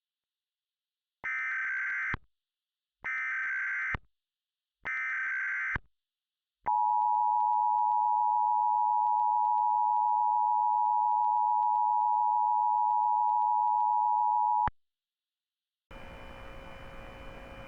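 Emergency Alert System tones: three one-second bursts of SAME header data, then the EAS two-tone attention signal held steady for about eight seconds, which cuts off sharply. A low hiss begins about two seconds before the end.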